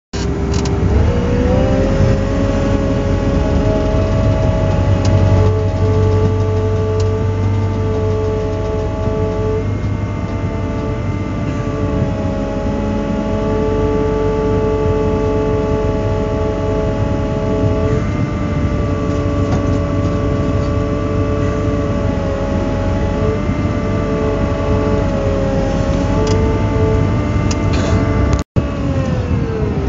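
Volvo EW160A wheeled excavator's diesel engine and hydraulics running steadily under work, its pitch rising about a second in as the revs come up and shifting slightly as the grapple and rotortilt move stones. The sound cuts out for an instant near the end.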